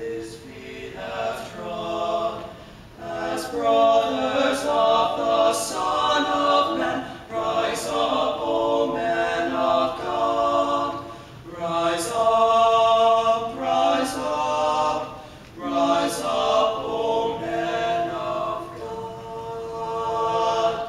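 Teenage male barbershop quartet singing a cappella in four-part close harmony (lead, tenor, baritone, bass), in phrases with short breaks, building near the end into a long held chord.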